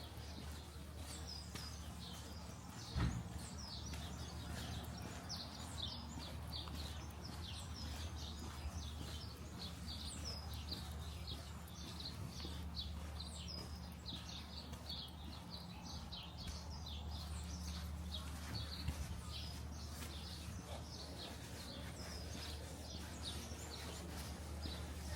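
Many small birds chirping continuously in quick, short calls, over a steady low hum, with a single sharp knock about three seconds in.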